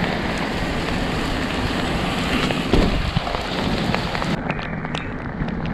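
Heavy rain falling: a steady hiss with many single drops clicking close by. About four seconds in, the highest part of the hiss cuts off abruptly.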